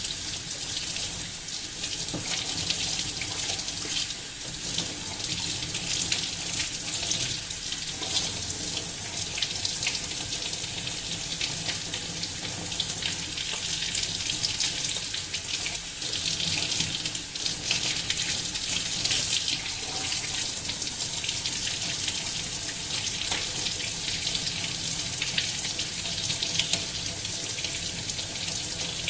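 Water running steadily from a tap into a sink, with splashing and small handling clicks as chocolate is washed off a smartphone.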